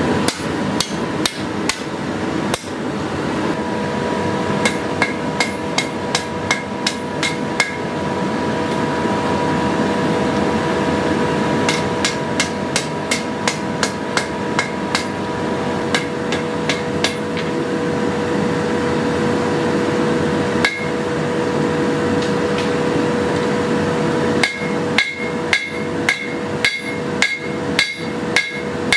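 Hammer blows forging a steel sword blade on an anvil. They come in runs of about three strikes a second with short pauses between, many with a short ringing note, over a steady rushing noise and hum.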